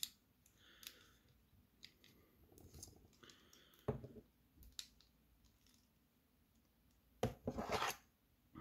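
Handling sounds of 3D-printed plastic reel parts being worked with locking pliers: scattered faint clicks and light knocks, one sharper knock about halfway, and a louder quick clatter of clicks near the end.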